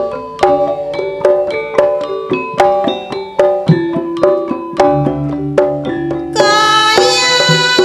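Javanese campursari ensemble playing an instrumental passage: a melody of sharp-attacked plucked or struck notes at a steady pulse over drums. A bright, held melodic line joins about six seconds in.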